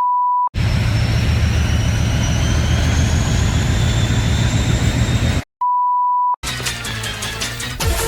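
A steady 1 kHz censor bleep at the start and again about five and a half seconds in. Between the bleeps is a loud, dense rumbling noise with faint rising whines high up. After the second bleep, music begins.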